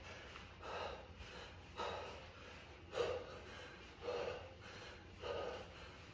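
A man breathing hard during mountain climbers, with short, loud exhales about once a second.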